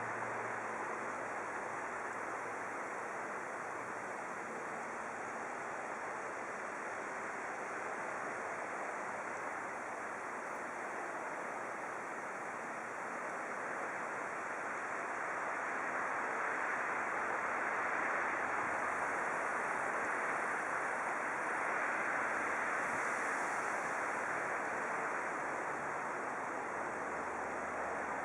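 Steady rushing noise, like wind or surf, that grows slightly louder in the second half.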